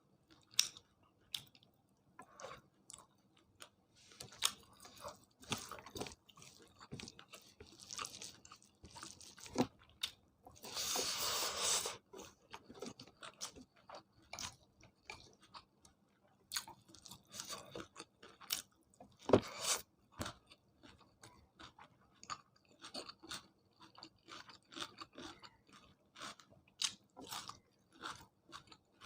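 Close-up sounds of a person eating a meal of chicken curry and rice with salad and green chillies: steady chewing with many short, crisp crunches and mouth clicks. About eleven seconds in there is a louder noisy stretch lasting about a second and a half, and a sharp click a little past halfway.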